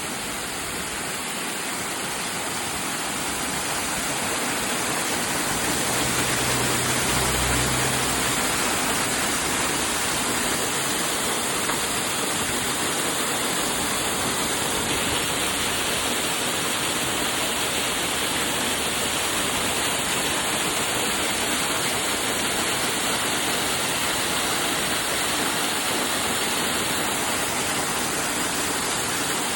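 Waterfall: a steady rush of falling water, growing louder over the first few seconds and then holding even.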